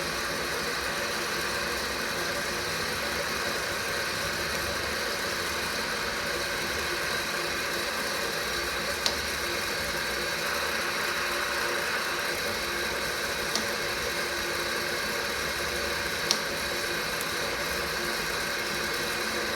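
Cheng Ki vertical milling machine's 1.5 hp three-phase motor and spindle running steadily with a constant hum and whine. Three brief sharp clicks come about nine, thirteen and a half, and sixteen seconds in.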